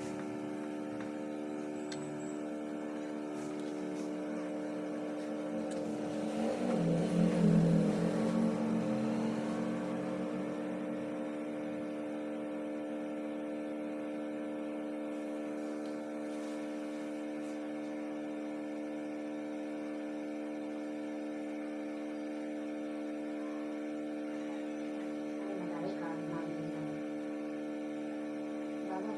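Steady electrical hum made of several held tones. A louder, muffled stretch rises over it about six seconds in and fades a few seconds later.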